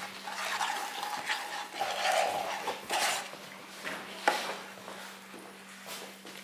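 Wooden spoon scraping and knocking against a frying pan of dalgona honeycomb toffee (caramelised sugar with baking soda) as the mixture is stirred and spooned out, with several sharp knocks. A steady low hum sits underneath.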